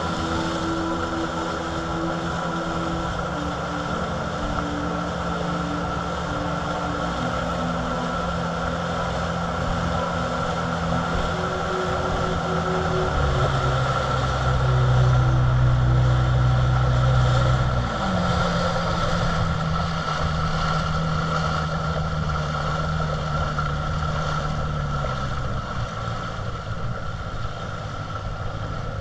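Motorboat engine running at low speed. About halfway through, its pitch drops and the sound gets louder; a few seconds later the pitch rises again, and it eases lower near the end.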